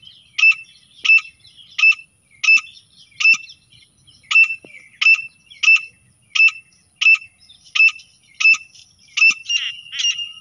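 Grey francolin calling: a loud, shrill note repeated steadily about every two-thirds of a second. In the last second a second, rattling call joins in over it.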